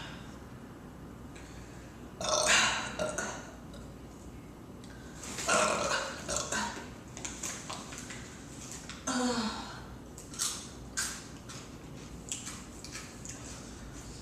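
A woman burping: two loud burps about two and five seconds in, and a shorter one with falling pitch near nine seconds, followed by a few short clicks.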